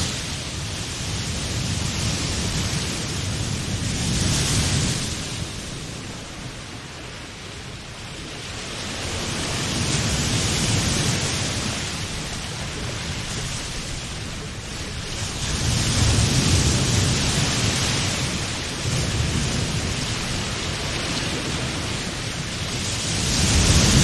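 Sea waves breaking: a rushing surf noise that swells and fades in slow surges about every six seconds.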